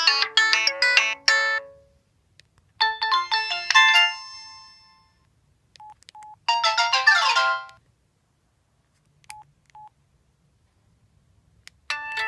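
Samsung SCH-a950 cell phone playing its built-in ringtones one after another. One electronic melody finishes, then a short tune starts about 3 s in and another with falling notes about 6.5 s in. The tunes are separated by pauses and a few brief beeps, and a new ringtone begins near the end.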